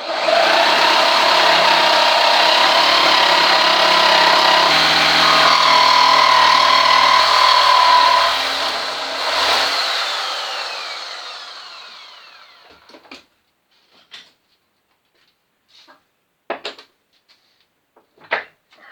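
Handheld power tool cutting through a bush clamped in a vise for about eight seconds, then its motor winding down with a falling whine. A few light knocks follow.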